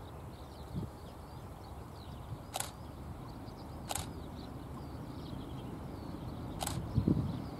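Faint low rumble of a distant train hauled by heritage English Electric diesel locomotives approaching, with low thumps of wind on the microphone strongest near the end. Three sharp clicks sound at uneven intervals, over faint bird chirps.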